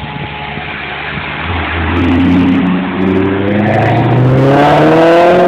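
High-performance sports car engine accelerating hard, getting louder and its revs climbing steadily in pitch through the second half.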